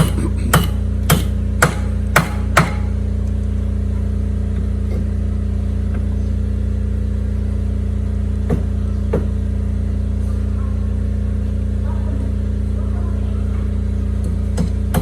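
Hammer blows, six in quick succession about half a second apart, then two more a few seconds later. Under them is the steady low hum of a running generator.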